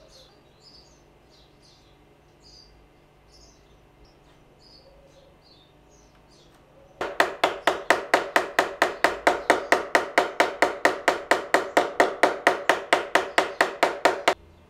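Rapid, even tapping, about five taps a second, starting about halfway through and stopping abruptly just before the end: a small hammer driving a glued wooden sliver into a crack in a reed organ's wooden reed pan. Birds chirp faintly before the tapping starts.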